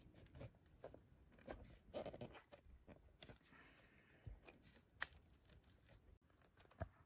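Faint clicks and rustling of hands working a braided fuel hose onto the carburetor's fuel inlet and seating its small spring clamp, with one sharper click about five seconds in.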